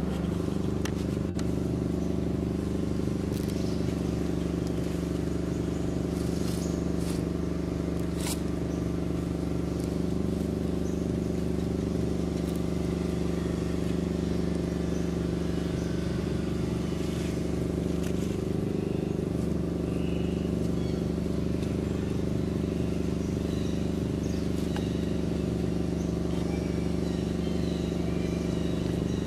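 A steady low mechanical hum made of several constant tones, like a motor running at an even speed, with scattered faint ticks and rustles over it.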